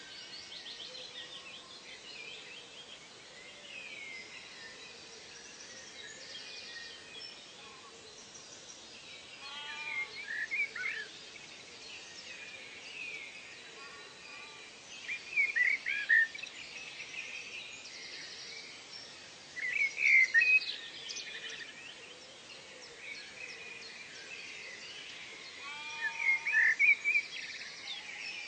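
Wild birds calling in a chorus of high chirps and short phrases, with four louder bursts of rapid chirping spaced about five seconds apart.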